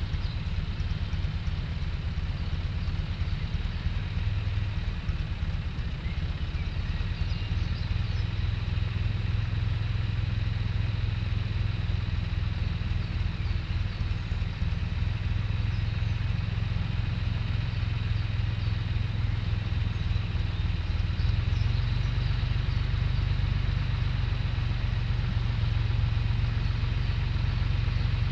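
Small John Deere tractor's diesel engine running steadily as the tractor approaches slowly across the field, growing a little louder about three-quarters of the way through.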